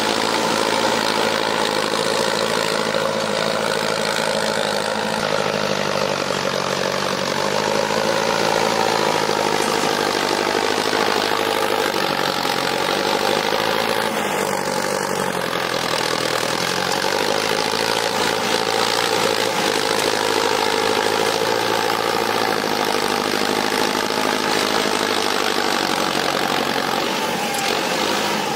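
Mahindra Arjun Novo 605 tractor's diesel engine running steadily under load while pulling a tine cultivator through the soil, its pitch rising and falling slightly.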